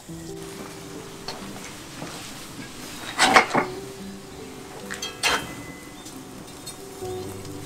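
Metal clanking as a hand-held wire grill basket is worked in a wood-fired oven: a cluster of sharp clanks about three seconds in and another clank about two seconds later, over soft background music.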